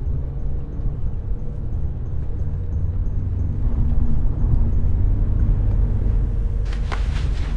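Steady low road rumble inside a moving car's cabin, under a soft, sustained music drone with faint, evenly spaced ticking.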